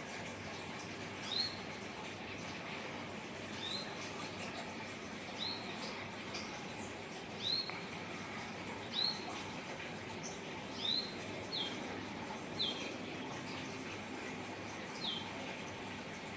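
A small bird calling a single short, high chirp again and again, about every one to two seconds, over a steady background hiss.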